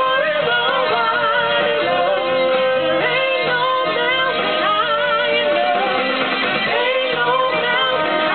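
Live band music: a singer holding wavering, drawn-out notes over steady band accompaniment.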